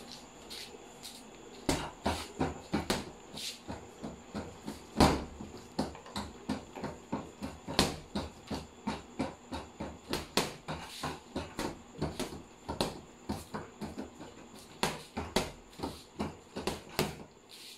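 Repeated thuds of kicks and gloved punches landing on a free-standing punching bag on a spring-mounted, water-filled base, irregular at about two to three blows a second, starting about two seconds in. One blow about five seconds in is the loudest.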